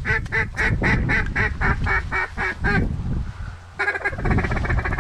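Loud mallard-style quacking: a long, even run of quacks at about four a second, a pause about three seconds in, then a faster chattering run. A steady low rumble of wind buffeting the microphone lies underneath.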